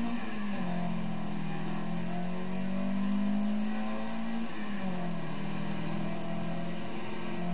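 Toyota 2TG 1600 twin-cam four-cylinder engine under load in a Starlet race car, heard from inside the car: the engine note climbs steadily and drops quickly twice, near the start and about five seconds in.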